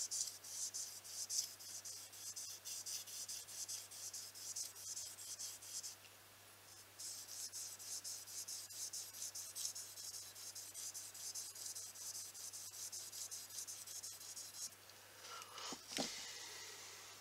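Mercator knife blade stroked rapidly back and forth across 5000-grit sandpaper on a block, a rhythmic scratchy hiss as the edge is resharpened to shaving sharpness. The strokes pause briefly about six seconds in and stop near the end, followed by a short knock.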